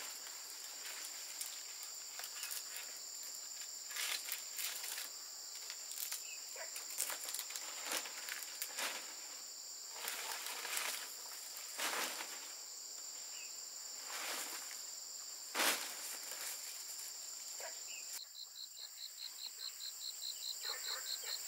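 Steady high drone of insects, with scattered rustles and knocks of palm leaves and bamboo poles being handled on a bamboo roof frame during thatching. Near the end the insect sound changes to a fast, even pulsing chirp, about four a second.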